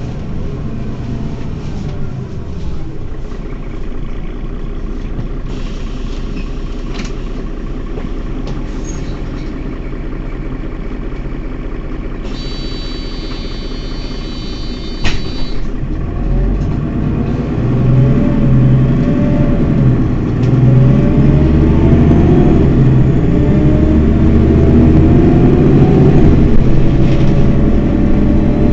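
Mercedes-Benz Citaro city bus engine idling. About halfway through, a steady high tone sounds for about three seconds and ends in a sharp click. The engine then runs louder, its pitch rising and falling.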